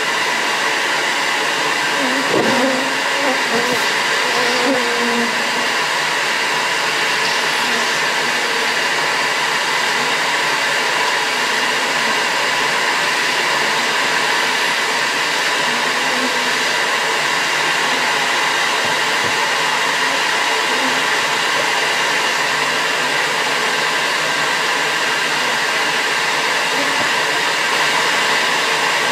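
Bee vacuum running steadily, a continuous motor whine and rush of air.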